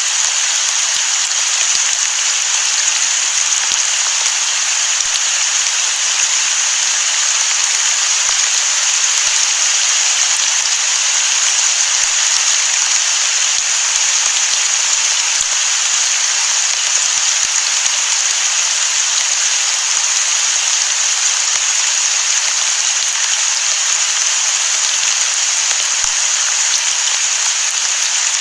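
Steady rain, an even hiss with no thunder.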